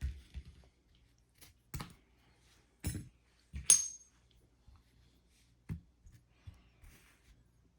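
Small metal lock tools clicking and tapping against a lock cylinder, a scatter of separate light knocks, with one sharp ringing metallic clink about halfway through.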